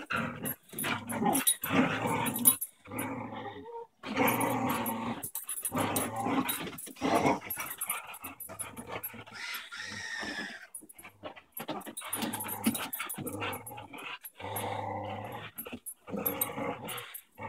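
Two beagles growling in play as they tug on a red ring toy between them. The growls come in repeated bouts of a second or two, broken by short pauses.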